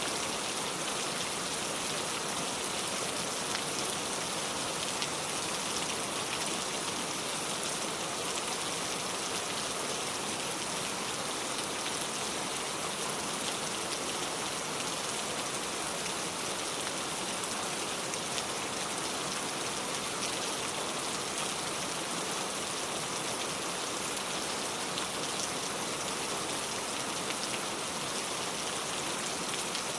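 Steady rain falling: an even hiss with a fine patter of drops, unchanging throughout.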